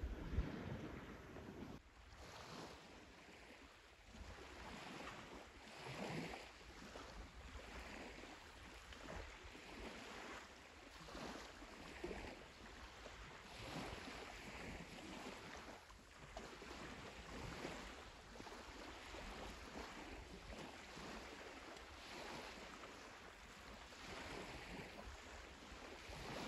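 Faint small sea waves washing onto the beach in gentle, repeated swells.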